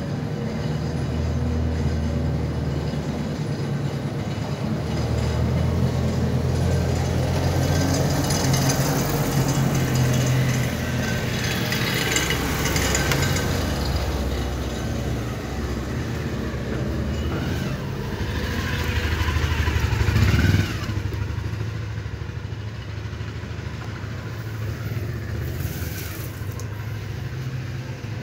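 A motor vehicle's engine running close by: a low rumble that rises and falls, swelling to its loudest about twenty seconds in and then dropping back sharply.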